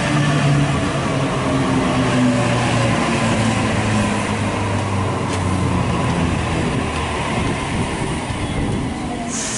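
Series 1 Waratah electric train creeping into the platform. Its traction motors give a slowly falling whine over a steady electric hum as it brakes to a stop, and a sudden hiss starts just before the end.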